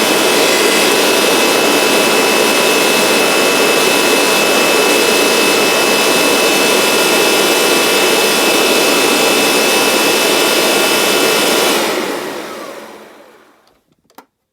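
Kirby Avalir upright vacuum running steadily with its mopper tray system fitted, a motor and airflow noise with a thin high whine. About twelve seconds in it is switched off and the motor winds down over a couple of seconds.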